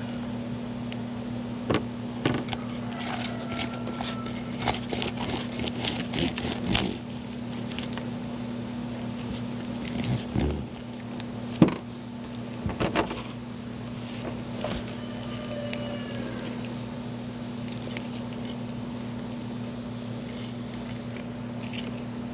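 Fish being filleted on a table with a dull knife: scattered scrapes, taps and knocks of blade and fish on the table, busiest in the first half, over a steady low hum.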